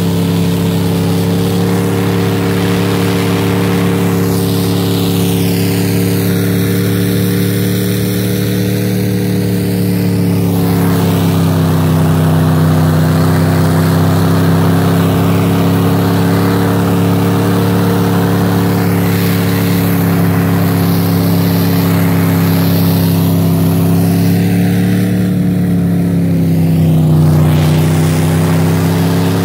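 Snowcat engine running steadily as the machine drives over snow, its pitch dipping slightly about ten seconds in and again near the end.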